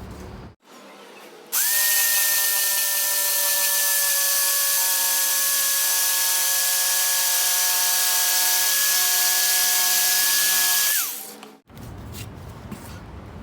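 A 650 W Hoyoma electric jigsaw runs for about nine seconds while cutting a thick pine board, with a steady high motor whine and blade rasp. It starts abruptly about a second and a half in, and the whine falls in pitch as the saw stops near the end.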